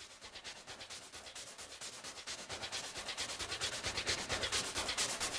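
A fast, even rhythm of hissing, noisy pulses, about six a second, swelling steadily louder.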